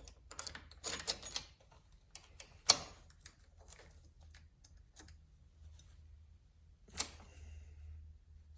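Chainsaw chain and bar being handled and fitted, with light metallic clicking and rattling and two sharp clacks, one about three seconds in and one near the end.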